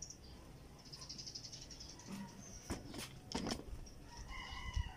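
Rustling and a few soft knocks from a phone being handled and turned around, over faint high chirping.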